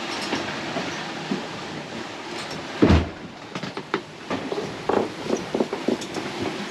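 Clattering and knocking of galley gear and fittings inside a sailing yacht as it works in a rough sea, with one heavy thump about three seconds in.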